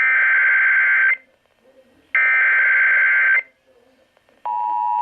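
NOAA Weather Radio SAME alert header: two bursts of warbling digital data tones, each about a second long and a second apart. About half a second before the end the steady alert attention tone begins, signalling that a severe thunderstorm warning is being issued.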